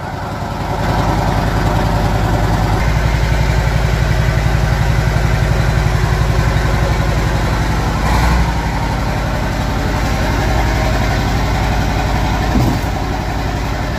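UD Nissan V8 diesel truck engine running steadily at idle, with an even rhythmic beat; its level picks up about a second in.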